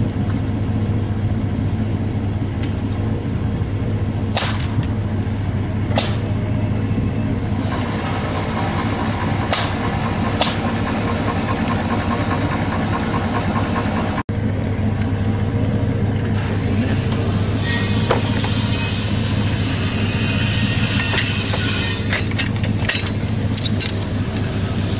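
An engine running steadily at idle, a low even hum throughout, with scattered sharp knocks and clatter as PVC drop pipe is handled, and a few seconds of hiss about two-thirds of the way through.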